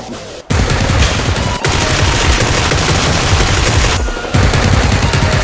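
Rapid bursts of automatic gunfire over background music, with a brief break about half a second in.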